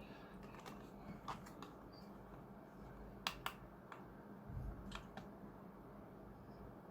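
Faint, scattered small clicks and taps, several in quick pairs and the loudest about three seconds in, from small capacitors being handled and fitted to a component tester. A soft low thump comes about four and a half seconds in.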